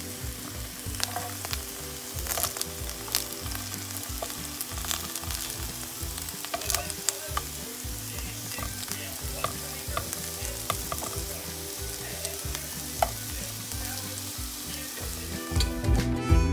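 Eggplant rings shallow-frying in oil in a nonstick pan: a steady sizzle with scattered crackling pops.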